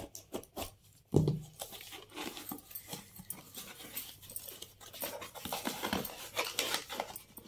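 A small cardboard parcel being cut open and unpacked: a thump about a second in, then steady scratching, tearing and rustling as the packing tape is cut and the cardboard flaps are pulled open.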